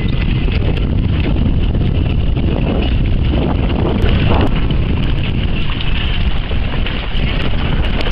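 Wind buffeting the microphone aboard a boat: a steady low rumble with no break.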